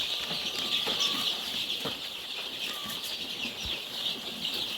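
A brooder full of two-week-old chicks peeping together: a dense, steady chorus of many high overlapping peeps.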